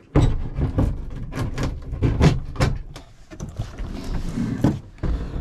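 Close rubbing and scuffing with a quick run of knocks and clicks in the middle: handling noise from reaching behind a wall panel to set a new RV shower faucet in place.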